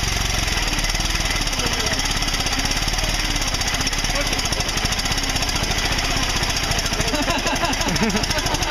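Ford Model T's four-cylinder engine running steadily after being hand-cranked to life, a rapid even beat of firing strokes.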